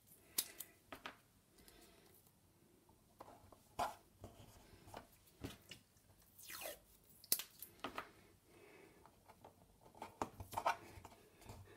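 Faint scattered clicks and short tearing and rustling sounds of washi tape being torn from its roll and pressed by hand onto an MDF frame.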